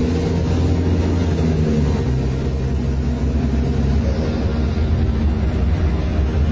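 Cummins ISBe 6.7 inline-six diesel of an Agrale MT15 city bus running steadily through a free-flow straight exhaust (escape libre), a low, rough drone. Its tone shifts slightly about two seconds in.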